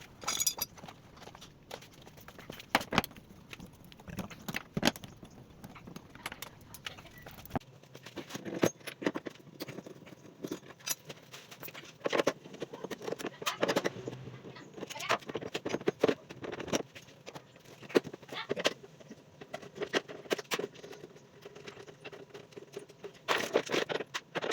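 Irregular metallic clicks, clinks and knocks of hand tools and parts being handled, scattered through the whole stretch, while work on a scooter begins.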